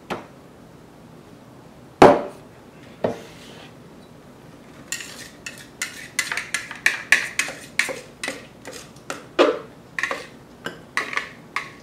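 A loud knock about two seconds in and a lighter one a second later, then a long run of quick clicks and scrapes: a spatula scraping chopped strawberries out of a plastic food processor bowl into a blender cup.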